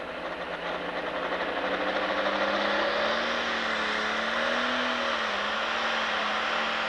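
Pro Stock pulling tractor's turbocharged diesel engine revving up at the line, building turbo boost pressure before the pull. It grows louder over the first two seconds or so, then holds steady at high revs.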